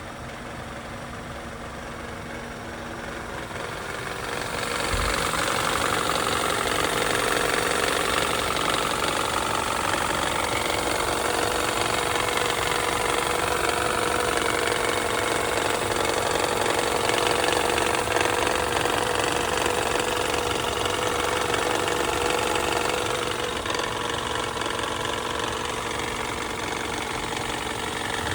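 Engine with a newly installed long block running with a knock. It grows louder about four seconds in and eases back a little near the end.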